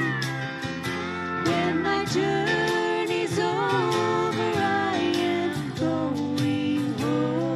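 Two women singing a country-style duet into microphones, over an accompaniment with guitar and a steady beat.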